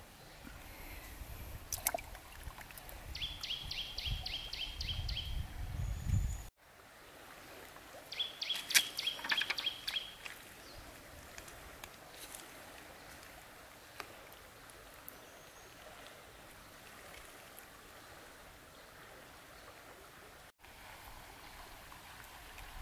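Quiet riverside ambience with a small bird's rapid trill of repeated high notes, heard twice: about three seconds in and again near nine seconds. A low rumble runs under the first six seconds.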